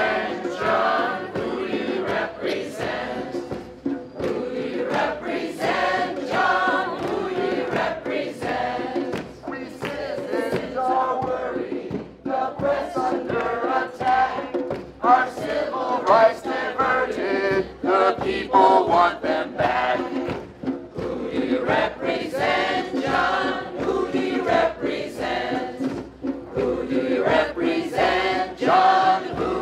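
Many voices singing together, continuing without a break.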